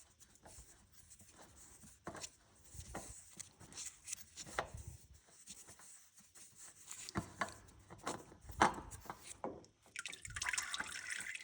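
Engine oil dripping from a loosened spin-on oil filter into a drain pan, with irregular light clicks and knocks as the filter is worked off by hand. Near the end there is a short stretch of steadier trickling.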